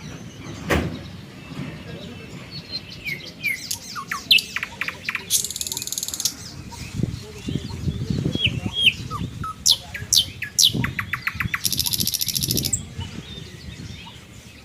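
Several wild birds chirping and calling, with short high chirps and downward-sweeping notes, and two bouts of a buzzy rapid trill about five seconds in and again about twelve seconds in.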